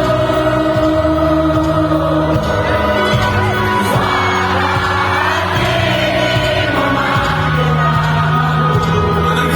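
Live pop-rock music from the band on stage, with singing over a steady bass line.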